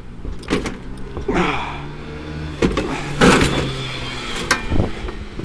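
Knocks and clanks of a heavy steel car rear axle being heaved onto a van, with a steady low hum through the middle.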